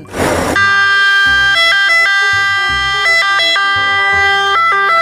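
Italian ambulance siren sounding. It holds one tone, broken every second or so by quick switches between pitches. A short rush of noise comes right at the start.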